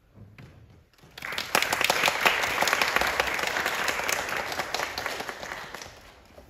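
Audience applauding: the clapping starts about a second in, holds steady, then fades away near the end.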